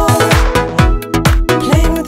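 Upbeat music with a steady kick-drum beat and a melody line over it.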